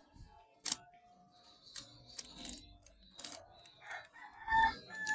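A rooster crows about four seconds in. Scattered sharp clicks and knocks sound before it.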